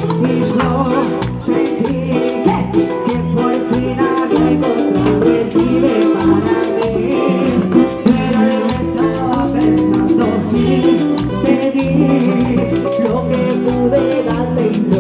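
Live band playing Latin dance music with a steady beat: button accordion, electric guitar, bass and timbales, with a woman singing into a microphone.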